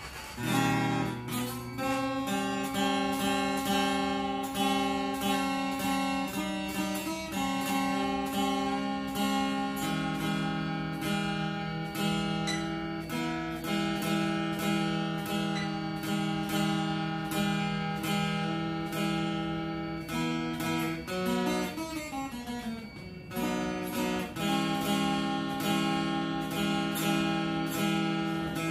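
Cole Clark custom acoustic-electric guitar strummed through a steady chord progression, the chords ringing between strokes. About 21 seconds in the playing thins out into a downward slide in pitch, then the strumming picks up again.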